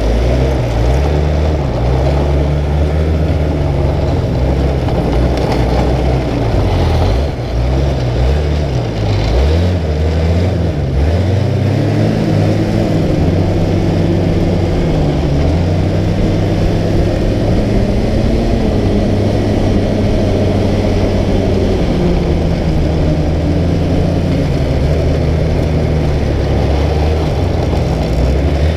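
Snowmobile engine running under way as the sled travels over snow, its pitch rising and falling with the throttle, wavering most a quarter to a third of the way in and steadier after.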